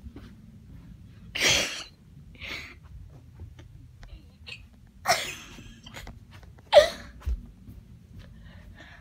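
An excited dog at close range making a few short, sharp, breathy snorts, about four in all, the loudest near the end with a brief falling tone and a low thump just after.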